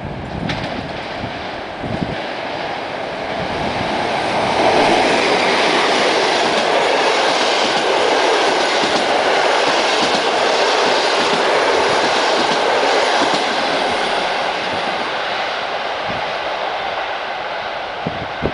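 Express passenger train hauled by a PKP EP07 electric locomotive passing at speed, its wheels running over the track. The sound builds over the first few seconds and stays loud as the carriages go by, from about five seconds in until past the middle. It then fades as the train draws away.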